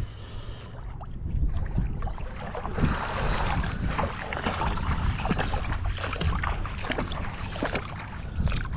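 Wind buffeting the microphone with water splashing and lapping around someone standing in shallow water, plus scattered small knocks and clicks.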